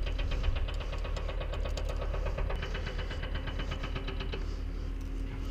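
Spinning fishing reel being cranked, a rapid even clicking that stops about four and a half seconds in, over a steady low rumble of wind on the microphone.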